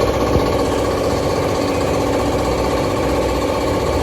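An engine idling steadily, an even drone with a faint rattle.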